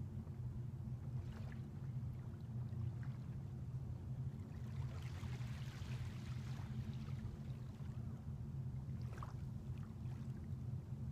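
Small waves lapping on a sandy shore, with one soft wash swelling about halfway through, over a steady low hum.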